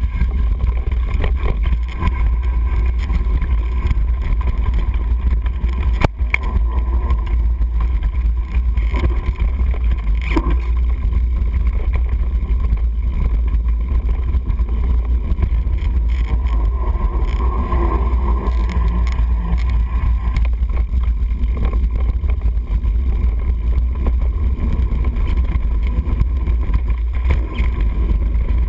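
Mountain bike riding fast down a forest dirt trail, heard as a steady low wind rumble on a GoPro's microphone with tyre noise and the bike rattling over bumps. A sharp knock about six seconds in.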